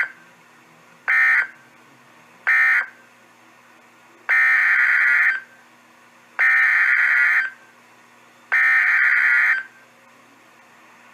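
NOAA Weather Radio SAME digital data bursts, a harsh buzzy screech. Three short bursts about a second apart, the end-of-message code for the warning just read, are followed by three longer bursts of about a second each, the header code announcing the next severe thunderstorm warning.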